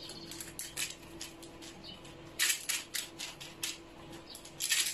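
Baking paper on a metal baking tray crinkling and rustling in quick crackles as fingertips press and stretch soft dough into flat rounds, with a faint steady hum underneath.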